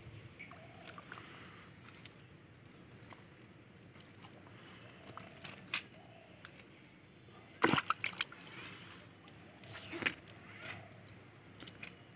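Live caught fish splashing and flapping, with scattered rustles and clicks of a cast net being handled. The loudest slaps come about eight and ten seconds in.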